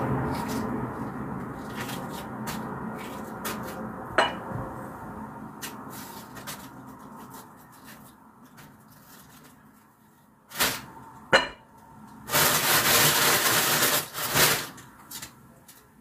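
Background music fades out over the first several seconds. Then come kitchen handling sounds at a countertop: two sharp knocks, followed by a couple of seconds of rustling.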